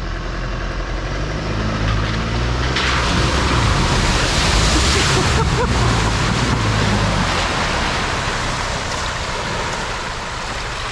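A four-wheel drive driving through a deep water-filled hole: the engine works under load throughout, and a heavy rush of splashing water builds from about three seconds in and eases off after about seven seconds.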